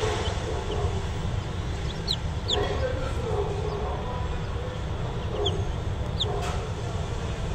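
Young chicks peeping: scattered short, high peeps that fall in pitch, over a steady low hum.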